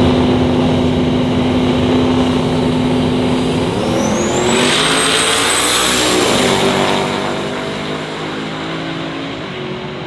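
Car engine running steadily. About four seconds in, a car drives past: a rising whine and a swell of engine and road noise, its engine note dropping as it goes by, then fading.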